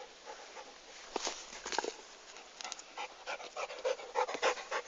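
A dog panting, quick short breaths that become steadier and more regular in the second half.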